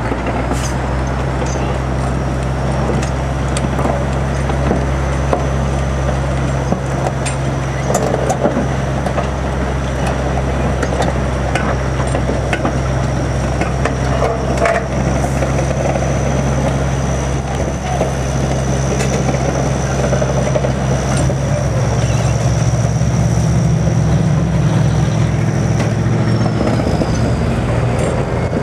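Manitowoc crawler crane's diesel engine running steadily as the crane moves on its crawler tracks, with occasional clanks and a steady high whine over it. About three quarters of the way through, the engine note rises.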